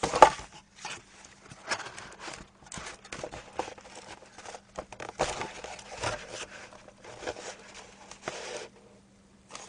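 Cardboard takeout chicken boxes and their paper liners being handled and opened: irregular rustling, scraping and light taps, dying away near the end.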